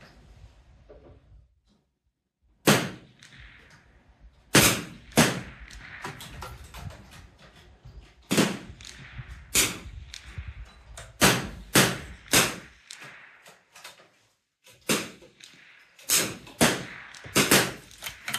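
.22 LR rimfire gunshots from shooters on the firing line, about a dozen sharp cracks at uneven spacing, several coming in quick succession near the end.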